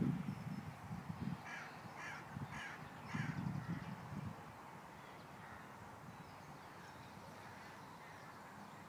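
A crow cawing four times in quick succession, with faint low thuds under it that die away after a few seconds.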